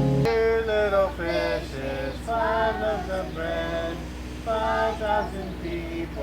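Voices singing, with a steady low hum underneath.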